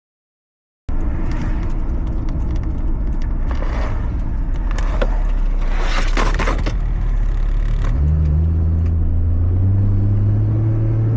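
A car engine running loudly. About eight seconds in, its pitch begins to climb slowly and steadily as the revs rise.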